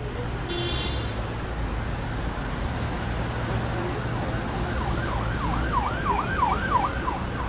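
City street traffic: a steady rumble of passing vehicles. From about five seconds in, an emergency-vehicle siren yelps in quick rising-and-falling sweeps.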